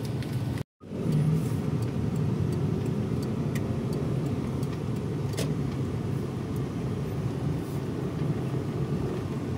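Steady low road rumble of a car driving, heard from inside the car, with a very short total dropout a little under a second in.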